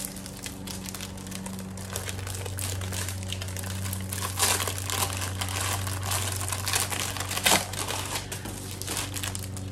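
Crinkly plastic wrapping on a pack of posters rustling and crackling as it is opened by hand, with louder crackles about four and a half and seven and a half seconds in.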